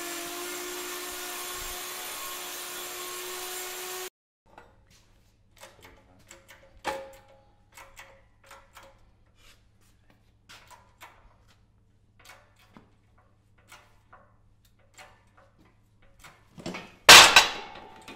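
A workshop machine runs with a steady whine and cuts off abruptly about four seconds in. Then come scattered metal clicks and taps of tools being handled around a crankshaft in a hydraulic press, and a loud metallic clank with ringing about a second before the end.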